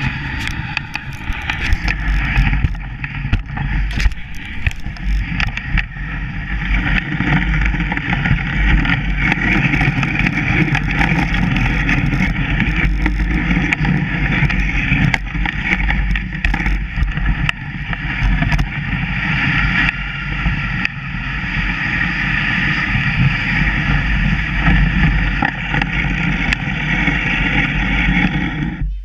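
Dog sled sliding over snow: a steady hiss and scrape from the runners, with frequent knocks as the sled bumps along.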